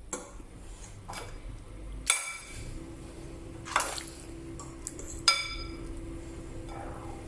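Wet handling of raw chicken fillets being dipped in beaten egg, with three sharp, ringing clinks of a utensil against a dish about a second and a half apart. A faint low steady hum starts about a third of the way in.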